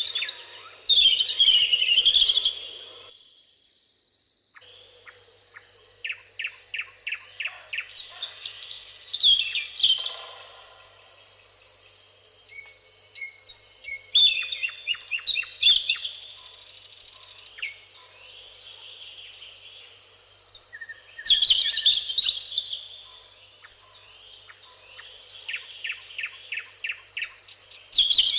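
Several songbirds singing and chirping: rapid series of short chirps and louder bursts of warbling song that recur every few seconds, over a steady thin high-pitched tone.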